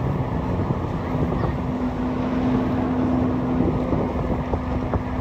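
Boat engine running steadily underway, with a steady hum that strengthens about a second in, and wind noise on the microphone.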